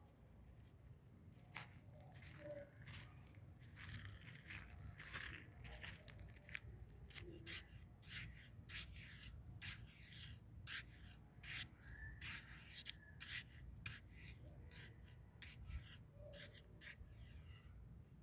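Faint, irregular crackling and rustling of dry leaves and twigs, many short snaps close together.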